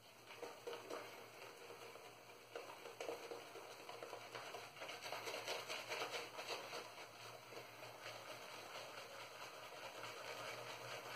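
Boar-bristle shaving brush (a Semogue Owner's Club boar) face-lathering shaving soap: bristles scrubbing back and forth through thick lather on the skin, a steady wet scratching that grows louder toward the middle.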